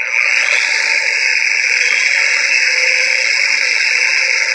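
Flex XFE 7-12 mini polisher running with a cleaning tool held against its spinning pad to clear out the clumped polish. It is a steady hissing whir that starts suddenly and holds even throughout.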